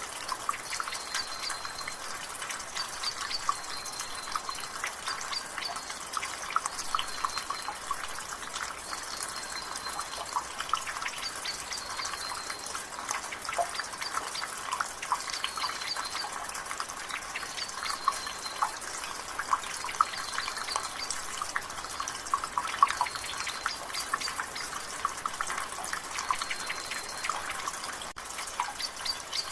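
Water dripping and splattering from a rain gutter in a dense, irregular patter of small drips, over a drizzle of rain. A bird repeats a short, high chirp every second or two in the background.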